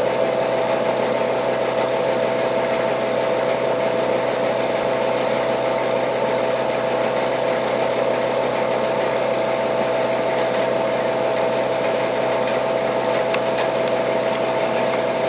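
Electric radiant heater running with a steady mechanical hum and a constant mid-pitched whine that never changes.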